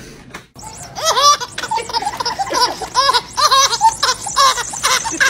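A baby laughing in a run of short, rising-and-falling squeals of laughter, starting about a second in.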